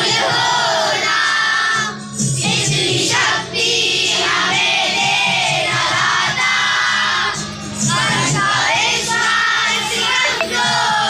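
A large group of children singing a prayer together in unison, with short breaks between the sung lines.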